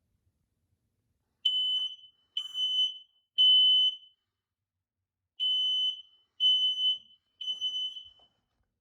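Smoke alarm sounding under test: two rounds of three high-pitched beeps, each about half a second long, with a longer pause between the rounds. This is the standard temporal-three evacuation pattern.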